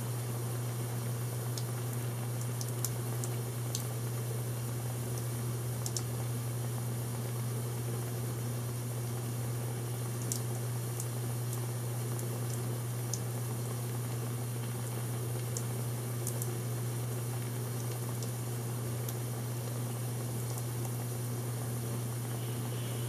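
Steam passing through a wavy hose with condensate pooled in its low spots, making a steady hiss and low hum, broken by irregular sharp snaps every second or few: small condensation-induced water hammer as steam pockets collapse in the water.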